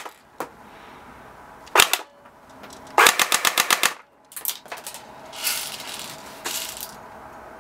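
Well D-90F battery-powered airsoft gun (P90 style) firing BBs: a single shot, then about a second later a rapid full-auto burst of about ten shots. Softer clicks and rustling follow.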